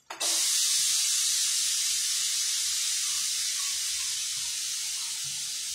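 Pressure cooker letting off steam through its weight valve: a loud, steady hiss that starts suddenly and slowly fades, the sign that the meat inside has come up to pressure.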